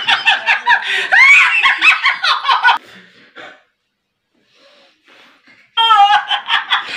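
A person laughing hard in rapid, high-pitched peals. It falls to faint, breathy snickers for about three seconds in the middle, then loud laughter starts again near the end.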